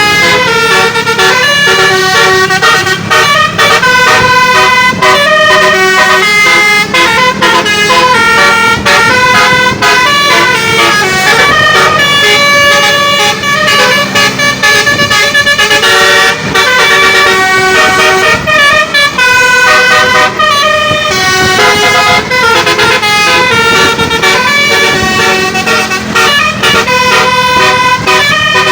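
Basuri telolet multi-tone air horn on a bus playing a fast tune, its notes stepping up and down in quick succession.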